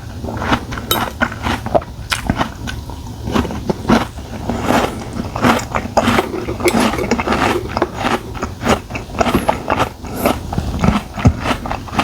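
A person eating: wet chewing, lip smacks and bites in quick, irregular clicks.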